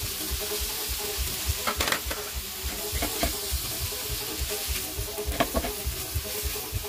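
Shrimp and onion frying in butter in a pan, with a steady sizzle, while being stirred with a silicone spatula; a few sharp knocks of the spatula against the pan stand out.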